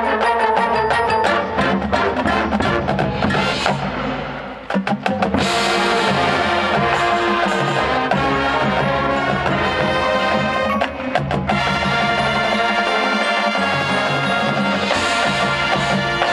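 Marching band playing: a fast, dense percussion passage of sharp hits, a brief drop, then full sustained wind chords over drums from about five seconds in.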